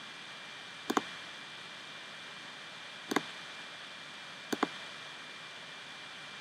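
Three quick double clicks, each a press and a release, of a computer pointing device's button, spaced a second or two apart, over a steady hiss of microphone noise.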